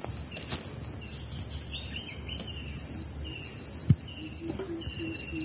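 A steady high-pitched chorus of insects, with short trilled calls repeating now and then. A single brief thump about four seconds in is the loudest moment.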